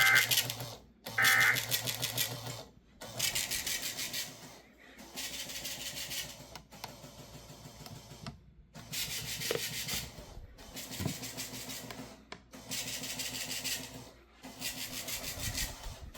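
Two short bursts of EAS/SAME digital data tones (the end-of-message code), then an EAS decoder's built-in printer printing the alert log. It runs in about seven rattling passes of a second or so each, with short pauses between them, loud for such a device.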